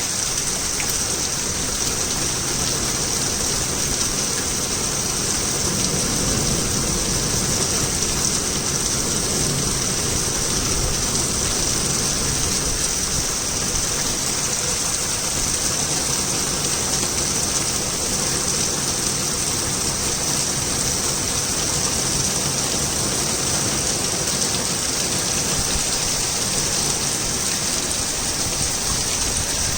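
Torrential rain falling, a steady, even hiss of heavy downpour.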